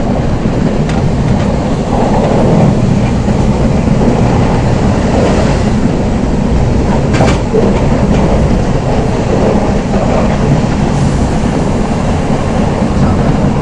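Steady running rumble of an SNCF Z 5600 double-deck electric train heard from inside the passenger coach, with a few sharp clicks, the clearest about seven seconds in.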